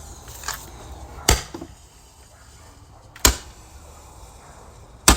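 Firecrackers going off: three sharp bangs about two seconds apart, with a smaller pop near the start.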